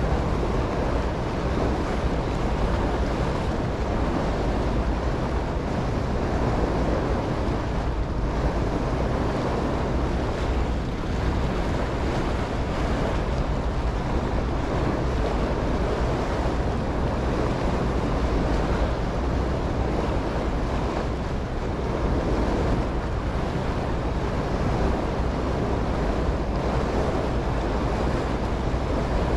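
Passenger ferry under way: a steady rush of wind on the microphone and water along the hull, over a low, even engine hum.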